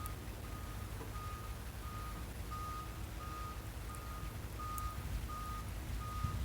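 A vehicle's backup alarm beeping steadily, about three beeps every two seconds at one pitch, over the low rumble of a running diesel engine while the machine reverses.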